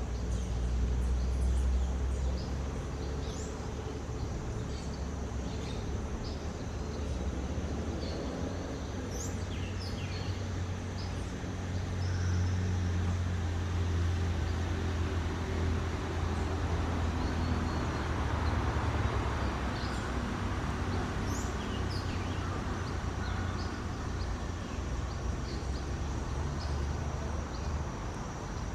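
Birds giving short, scattered chirps and calls throughout, over a steady low rumble and a constant high, thin hum.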